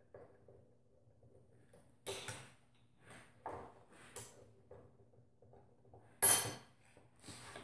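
Short metallic clanks and rattles of a bench vise being worked and a shock absorber's aluminium remote reservoir being set in its jaws, the loudest clank about six seconds in. A faint steady low hum lies underneath.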